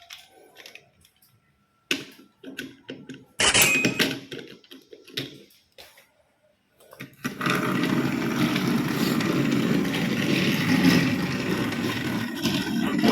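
Plastic toy pieces clicking and knocking as they are handled, then, from about seven seconds in, a small battery-powered toy motor running with a steady whirr.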